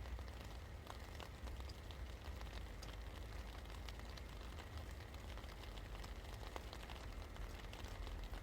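Steady rain falling, with many small drops ticking over a soft hiss and a low, even rumble underneath.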